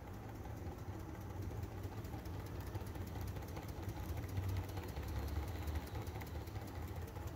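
Small Manson hot-air engine with a glass piston running steadily, giving a fast, even patter of light clicks from its moving parts over a low hum.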